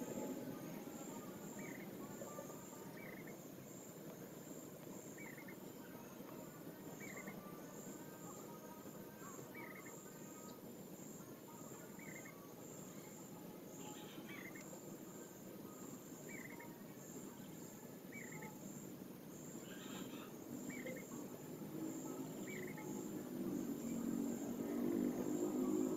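Outdoor insect chorus: a high, rapidly pulsing trill of crickets goes on without a break, with a short chirp repeating about every one and a half to two seconds. A low noise builds in the last few seconds and becomes the loudest sound.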